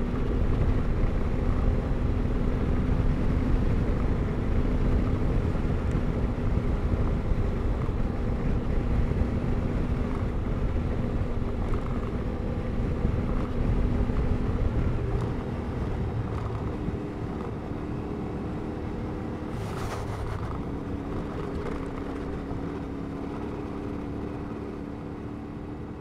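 A CFMOTO 450MT's parallel-twin engine running steadily under way on a dirt track, over a dense low rumble. It eases off and quietens with a change of note about fifteen seconds in, and a short sharp noise sounds near twenty seconds.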